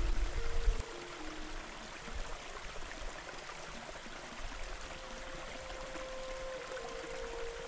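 Waterfall and river water flowing in a steady rush, with faint held tones of soft background music underneath. A deep low rumble cuts off suddenly under a second in.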